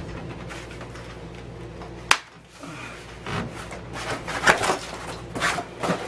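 A sharp click about two seconds in, then a few short bursts of rubbing and knocking as bike parts and packaging are handled and looked over.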